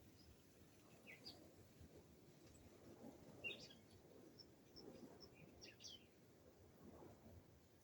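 Faint wild birdsong: scattered short high chirps and calls from several birds, with a quick run of high notes around the middle.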